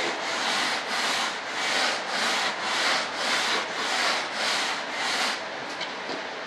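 Edge of a thin sheet sanded on a long flat sanding board with quick back-and-forth strokes, about two a second, stopping about five seconds in.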